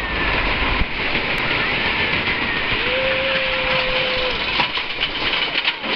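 Wooden roller coaster train running along its track: a loud rush of wind over the microphone and the rattle of the cars, with riders screaming. Near the end the wheels clatter over the track in a fast rhythm.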